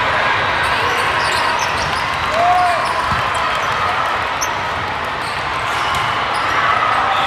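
Busy volleyball tournament hall: a steady din of many players' and spectators' voices, with volleyballs being hit and bouncing on the courts, echoing in a large hall.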